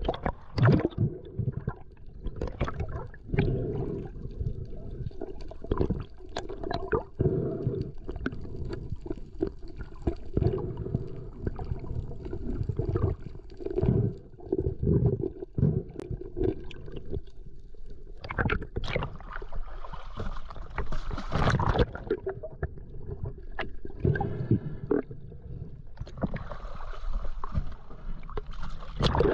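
Water sloshing and gurgling, dull and low, with irregular knocks and splashes throughout.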